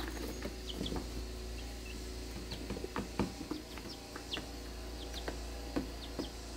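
Young chicks peeping now and then, short high falling notes, with brief soft taps and rustles in their hay bedding and a steady low hum underneath.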